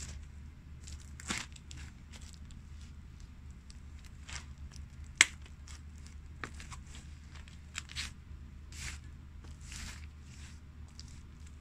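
Pumpkin flesh and seeds crushed under hard-soled loafers: irregular wet crunches and crackles, with one sharp snap about five seconds in. A low steady hum runs underneath.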